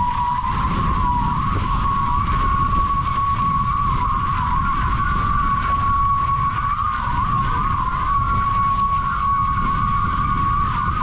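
Nacra 15 FCS hydrofoils humming at speed: a steady, high-pitched hum that wavers and creeps slightly upward, the pitch that marks about 21–22 knots. Under it, wind buffeting on the microphone and rushing water.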